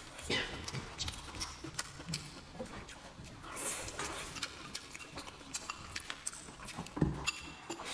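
Close-up eating sounds: chewing with wet mouth clicks and lip smacks in an irregular series, and one louder thump about seven seconds in.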